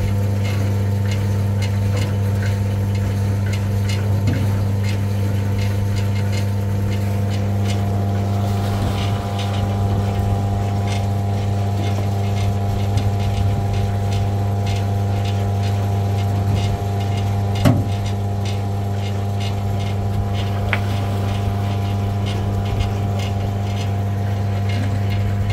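A small engine or motor running steadily with a low, even hum and a light regular ticking; its tone changes slightly about eight seconds in.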